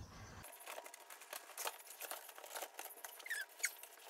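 Faint light clicks and taps of flat-pack dog-house panels and pegs being handled and fitted together, with a couple of short, thin squeaks about three seconds in.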